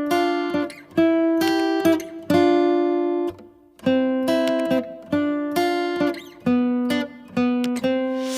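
Acoustic guitar music: plucked and strummed chords, each struck sharply and left to ring, in a steady unhurried rhythm.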